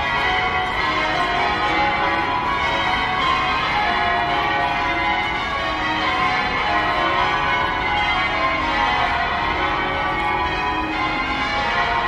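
Cathedral bells ringing close by, with many bell tones sounding over and into each other without a break.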